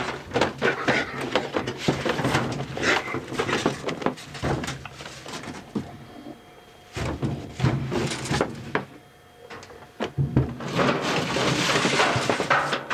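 Rapid, irregular knocks, scrapes and clatter of a rake handle being jabbed and dragged behind a washing machine, hitting the machine's casing, hoses and whatever is stored behind it. A longer stretch of dense scraping and rustling comes near the end.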